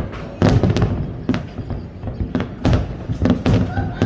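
Fireworks display: a rapid run of aerial shell bursts going off one after another, sharp bangs and booms several times a second, with the loudest cluster about half a second in and again past the three-second mark.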